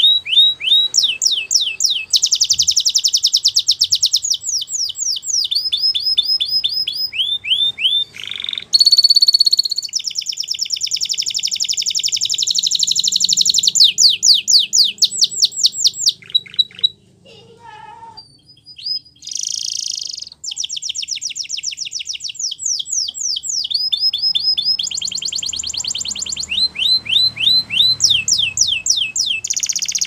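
Spanish Timbrado canary singing a long song of fast trills and rolls, each phrase a quick string of repeated notes at its own speed, with one held note about nine seconds in and a short break about seventeen seconds in.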